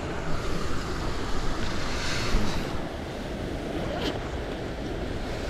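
Shallow creek water running over stones, with wind rumbling on the microphone. A short louder swish of water comes about two seconds in.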